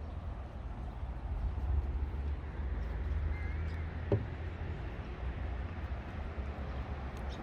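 Outdoor park ambience dominated by a steady low rumble, with a brief chirp about three and a half seconds in and a single sharp knock about four seconds in.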